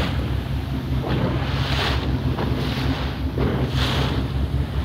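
Boat engine running with a steady low hum, with wind on the microphone and water washing past the hull in swells about every two seconds.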